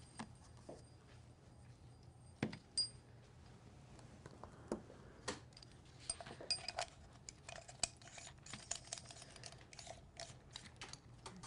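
Light clicks and taps of small plastic and metal fittings being handled and fitted onto an underwater camera housing and its cable connector, with a couple of sharper knocks about two and a half seconds in and a busier run of clicking in the second half.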